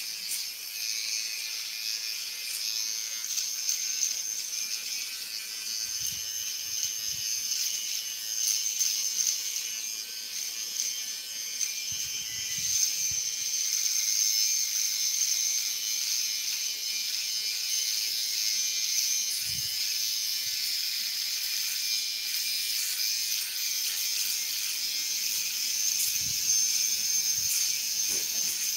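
Gold cordless electric hair trimmer running steadily as it cuts a child's short hair, a high-pitched buzz of the vibrating blades.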